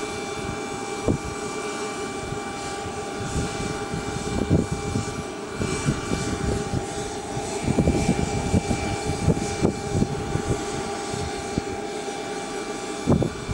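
Steady high-pitched whine of a jet turbine, several tones held level, over a rough, gusting low rumble of wind on the microphone.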